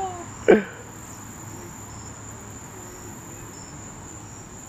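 Crickets trilling in one unbroken high-pitched tone, with a person's short exclamation about half a second in.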